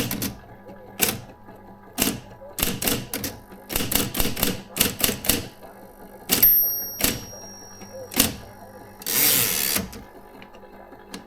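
Adler Junior Electric electric typewriter typing: keys strike in quick groups of clicks for about five seconds, then a high ringing tone sounds for under two seconds. About nine seconds in, a rushing mechanical noise of about a second follows, likely the powered carriage return, over the steady hum of the typewriter's motor.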